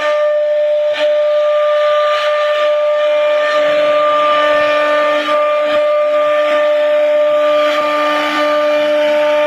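CNC router spindle running at a steady high whine while its bit carves a decorative pattern into a wooden panel, with the hiss of the cut mixed in.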